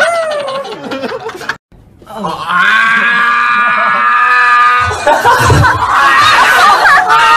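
Young men screaming and laughing loudly. A long, steady high-pitched scream is followed, about five seconds in, by bursts of hard, breathless laughter.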